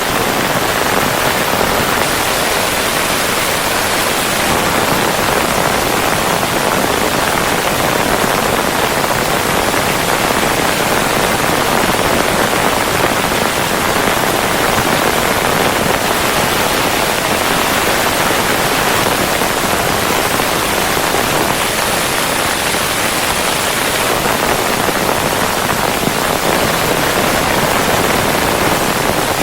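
Steady rushing hiss of falling water, even and unbroken.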